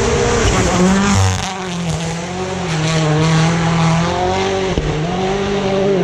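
Rally car's engine running hard at high, fairly steady revs, dipping briefly about a second in and again near five seconds in as it shifts, with tyre noise on gravel.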